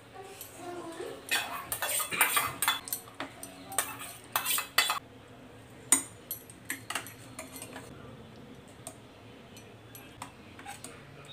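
Steel ladle clinking and scraping against a stainless steel pressure cooker as a thick curry is stirred. The clatter is busiest in the first five seconds, with one sharp knock about six seconds in, then a few scattered taps.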